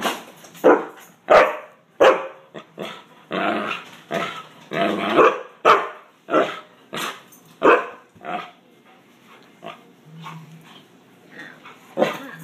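Chocolate Labrador barking repeatedly in play, up close. The barks come thick through the first half and thin out and quieten for a couple of seconds near the end.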